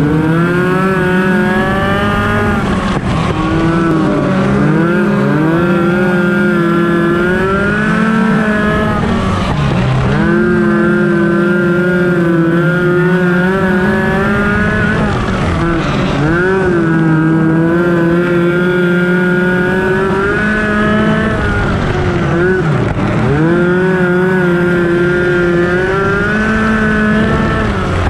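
Heard from the cockpit: a Focus midget race car's Ford Focus four-cylinder engine running hard on a dirt oval. Its pitch rises and holds, then dips sharply and climbs again about every six to seven seconds as the driver lifts for the turns.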